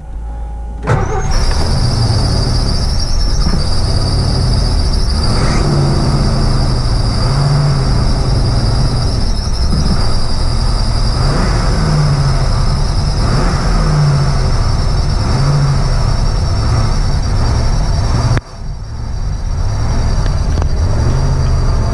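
Ford 302 V8 catches about a second in and runs cold, kept alive on the throttle so its pitch rises and falls, with a steady high squeal from a belt over the running. Near the end the running drops off sharply for a moment, then builds back up.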